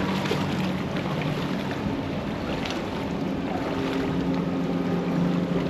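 Motorboat engine running steadily, a low even drone over wind and surf noise.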